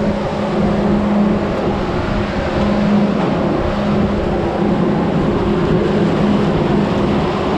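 Farm harvest machinery running steadily at working speed: a loud, even engine drone with a constant hum.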